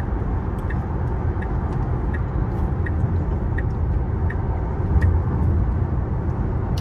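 Road and tyre noise inside a Tesla's cabin at highway speed: a steady low rumble, with a light tick repeating about every 0.7 seconds.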